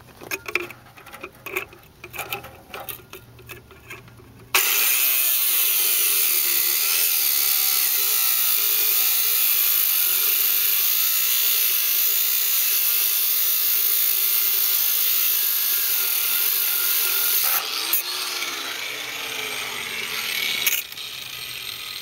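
Angle grinder with a cutting wheel cutting through the crimp of a hydraulic hose fitting. After some handling clicks, the grinding starts abruptly about four and a half seconds in and runs steadily for about thirteen seconds. It then eases, its pitch falls briefly, and a few shorter cuts follow near the end.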